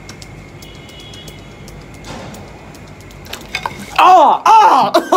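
Quiet room hum with a few faint clicks. About four seconds in, a loud, high-pitched voice-like sound starts, its pitch wavering up and down.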